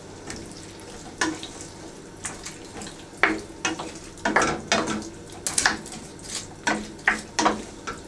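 Wooden spoon stirring a stew of beef, peas and tomato paste in a stainless steel pan, in irregular scraping and knocking strokes that come more often in the second half. A low sizzle from the freshly watered pan runs underneath.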